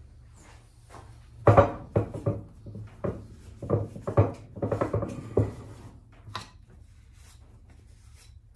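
Hand tools and a cloth bundle being handled on a wooden workbench: a quick run of knocks and cloth rustling for about four seconds, then a single click and faint rubbing as a rag wipes a part of the jack plane.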